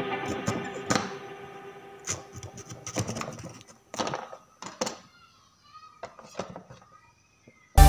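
Background music fading out, then scattered light clicks and taps of thin metal rods and wire being handled on a tabletop, with near silence between them.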